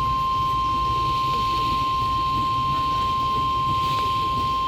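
NOAA Weather Radio 1050 Hz warning alarm tone: one steady, unbroken high tone over faint receiver hiss. It is the alarm that switches on tone-alert weather receivers, sent here as the weekly test.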